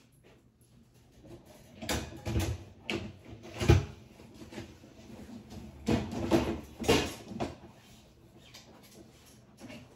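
Knocks, clunks and scrapes of things being handled, moved and set down. They come in two clusters: a few from about two to four seconds in, the sharpest near four seconds, then more from about six to seven and a half seconds in.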